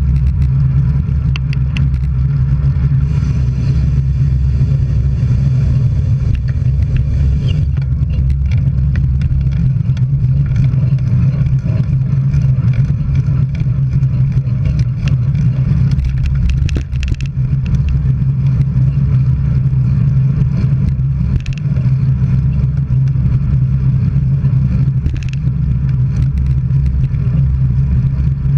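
Steady low road and wind rumble from travelling along a road, with scattered small clicks and rattles.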